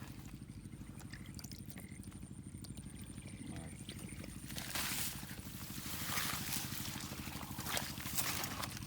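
A small engine runs steadily with a fast, even pulse, and from about four and a half seconds in, water splashes and sloshes over it several times.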